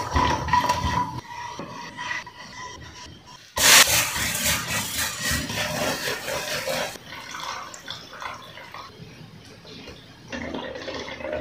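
Chopped nuts frying and crackling in oil in a nonstick pan as a spatula stirs them. At about three and a half seconds a loud sizzle starts as grated pumpkin goes in. The pumpkin is then stirred and scraped with a silicone spatula, and the sizzle fades to a lower scraping, swelling again near the end.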